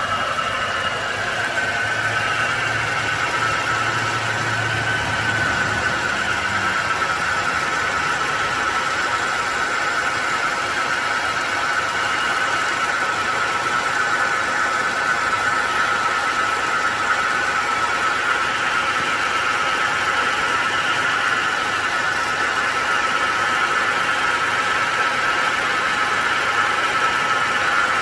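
Car engine idling with a steady high-pitched whine from the air-conditioning compressor, the sign of a failing A/C compressor.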